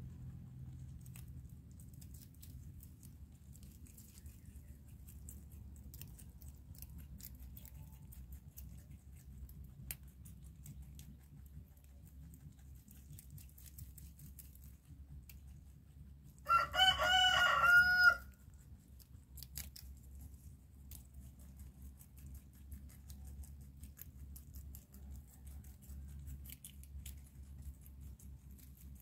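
A rooster crows once, a wavering call of about a second and a half a bit past the middle, the loudest thing here. Under it runs a faint steady low hum with scattered faint ticks.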